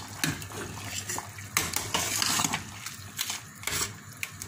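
Chicken-bone broth boiling hard in a stainless steel pot while a slotted spatula stirs and mashes the softened bones, with splashing and several knocks of the spatula against the pot. The loudest splashing comes about a third of the way in.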